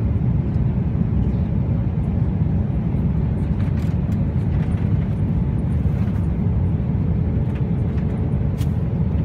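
Jet airliner cabin noise in flight: the steady low roar of the engines and airflow heard from inside the cabin, with a few faint light clicks.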